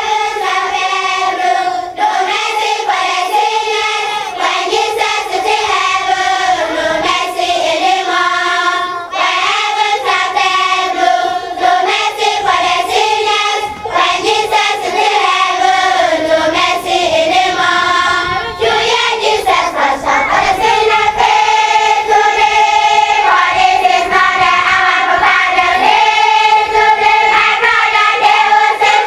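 A choir of children singing together, held notes sung in phrases of a few seconds with short breaks between them.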